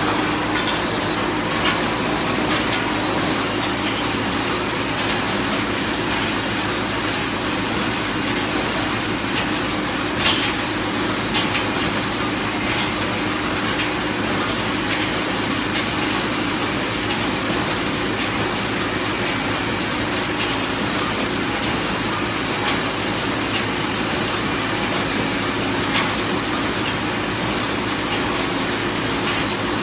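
Chicken cage wire mesh welding machine running: a steady mechanical hum with a light ticking about twice a second and an occasional knock.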